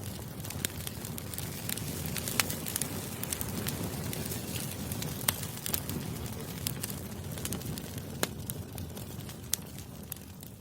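Campfire burning: a steady low rustle of flames with frequent sharp crackles and pops, a few of them louder than the rest.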